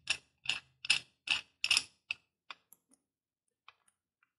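Metal clicks from the steel duck-head adapter's bolt and bracket being worked by hand: six sharp, evenly spaced clicks about two and a half a second, then a few faint scattered ticks.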